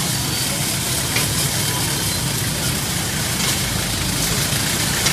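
Motorbike engines idling and running slowly in close-packed street traffic: a steady low engine hum under general street noise.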